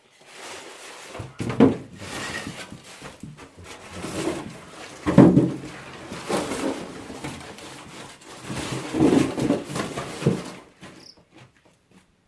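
Cardboard box and packing material being handled and pulled apart, with rustling, rubbing and several dull thumps, stopping about eleven seconds in.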